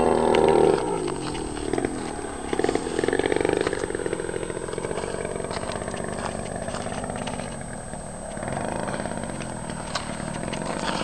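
DLE30 single-cylinder two-stroke petrol engine running on a test stand with a wooden propeller, being broken in. Its speed drops about a second in, picks up briefly around three seconds, eases off near eight seconds and picks up again.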